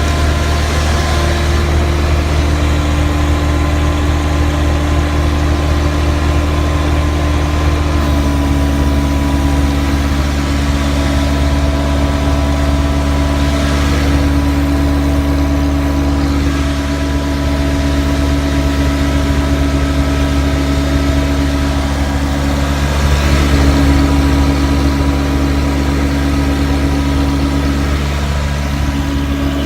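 Prochem Everest HP truckmount carpet-cleaning machine running steadily: its engine and vacuum blower make a constant loud drone. The pitch shifts slightly about eight seconds in, and again a little over twenty seconds in, where it briefly grows louder.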